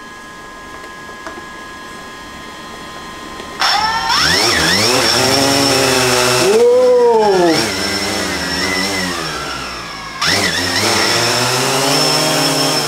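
DJI Phantom 4 Pro quadcopter's four motors and propellers spinning up for takeoff: a loud whine that starts abruptly about three and a half seconds in, its pitch rising and falling as the drone lifts and holds. It dips briefly around ten seconds in and picks up again.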